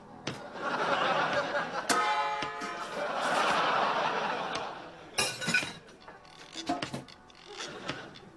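Audience laughter that swells for about four seconds and then dies away, followed by a brief sharp clink about five seconds in.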